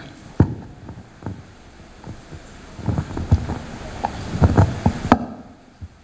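Handling noise on a headset microphone as it is touched and adjusted: a sharp click, scattered low thumps and rustles, then another sharp click near the end.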